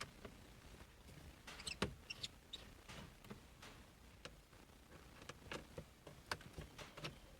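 A screwdriver unscrewing screws from a car's plastic center console: faint, scattered clicks and ticks, with a few short high squeaks about two seconds in.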